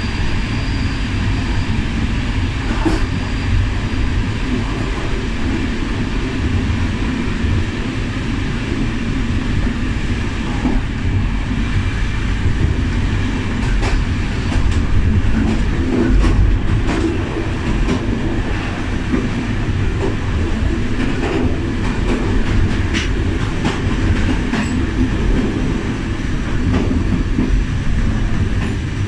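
Railway passenger coach running on jointed track: a steady rumble of wheels on rails with scattered clicks and knocks as the wheels pass rail joints and points.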